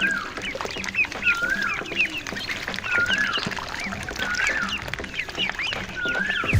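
Ducklings peeping: many short high peeps, with a longer rising-and-falling call that comes back about every second and a half.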